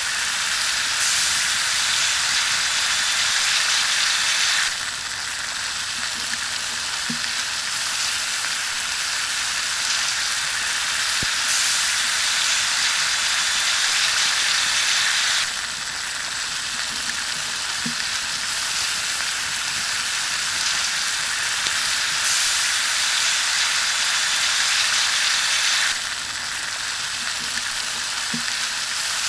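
Pork ribs sizzling on a hot rock over a fire: a steady, high frying hiss that jumps abruptly louder or quieter every few seconds.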